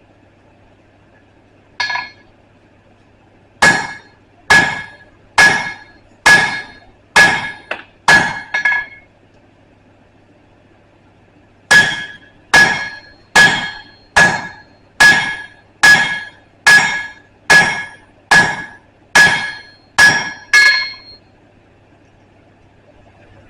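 Blacksmith's hammer striking steel on an anvil, likely forging punch stock. One light tap comes first, then about seven blows a little over one a second. After a pause of about three seconds, another dozen blows follow at the same pace, each leaving a short metallic ring.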